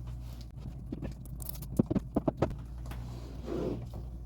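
Mini Rubik's cubes and their packaging being worked out of the box by hand: a quick run of sharp plastic clicks and knocks about two seconds in, then a brief rustle.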